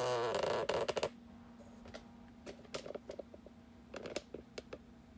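Handling sounds: about a second of loud rubbing and scraping, then scattered light clicks and taps as the hand works the dial fish scale hooked to the air pistol's trigger.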